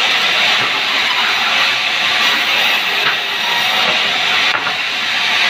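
Sawmill bandsaw cutting a pucung hardwood plank: a loud, steady hissing rasp of the band blade through the wood over the running machine.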